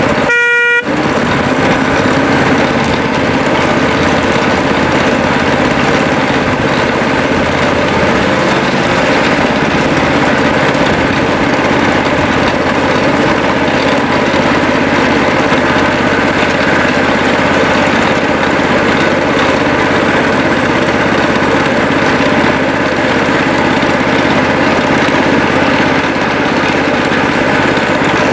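Small engine of a miniature railway locomotive running steadily as the train travels along the track. About half a second in, the engine sound drops out briefly and a short pitched tone sounds.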